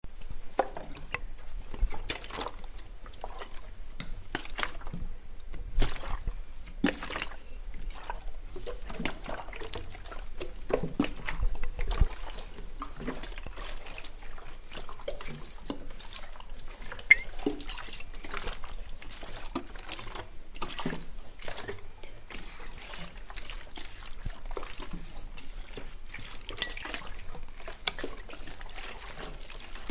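Water dripping and trickling: many small irregular drops, unevenly spaced.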